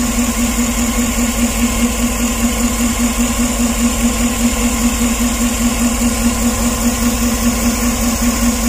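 Chevrolet Tahoe gasoline V8 idling steadily with a misfire: a rough idle that the mechanics are tracing cylinder by cylinder at the ignition coils and high-tension wires.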